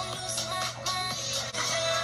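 Upbeat dance-pop track playing, with a steady beat.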